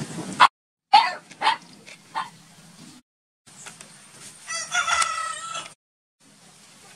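A rooster crows once, a pitched call of a little over a second, about four and a half seconds in. Earlier come a few short, sharp calls, and the sound drops out briefly between short clips.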